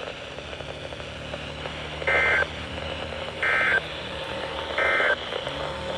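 NOAA Weather Radio EAS end-of-message data bursts: three short electronic two-tone bursts about a second and a half apart, marking the end of the weekly test. They sound over the steady hiss of weak radio reception.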